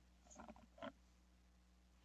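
Near silence: room tone with a steady low hum and two faint, brief soft sounds in the first second.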